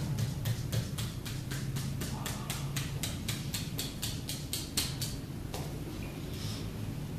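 Rapid, even tapping on a bare heel during a heel massage, about four knocks a second, stopping about five and a half seconds in, over a steady low hum.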